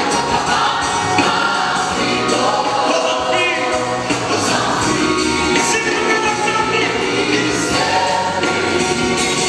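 Large mixed gospel choir of women's and men's voices singing together with instrumental backing.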